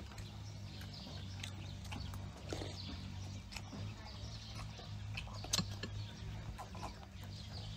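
Close-up eating sounds: chewing and mouth clicks with scattered sharp clicks, the sharpest about five and a half seconds in, over a steady low hum.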